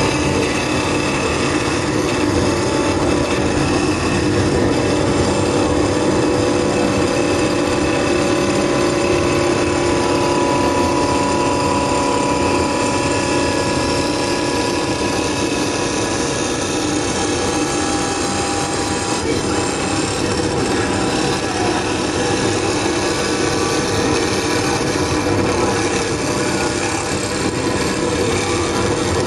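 CNC wood lathe running steadily, its cutter machining a wooden workpiece: continuous cutting noise over a steady motor whine.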